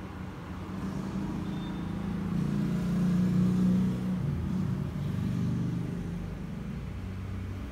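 Low engine hum of a passing road vehicle, swelling to a peak about three seconds in and then fading.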